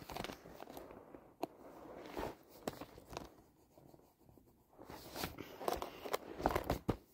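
Pencil scratching on paper in short, irregular strokes, with rustling and light knocks close to the microphone, busiest near the end.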